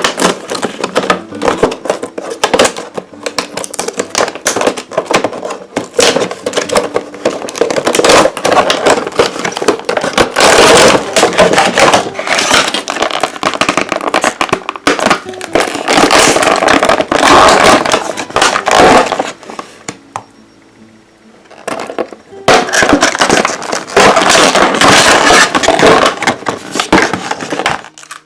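A toy doll box being opened by hand: packaging crackling and scraping, with knocks, in dense irregular bursts and a brief lull about two-thirds of the way through.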